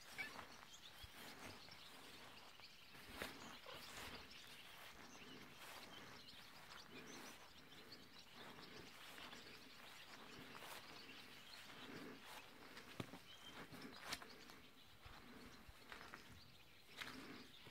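Quiet outdoor ambience with faint bird chirps and soft footsteps on grass, about one a second, with a few sharp clicks in between.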